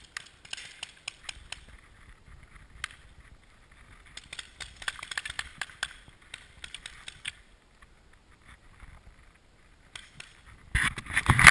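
Paintball game in play: scattered sharp pops and clicks of paintball markers firing, mixed with the rustle of a player moving on grass. A louder, denser burst of noise comes near the end.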